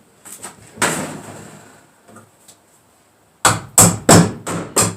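Hammer blows fastening an electrical box to the wall framing: a single knock about a second in, then a quick run of five hard strikes in the last second and a half.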